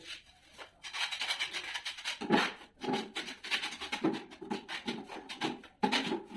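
Trowel scraping mortar off a long metal straightedge in repeated rasping strokes, a few a second.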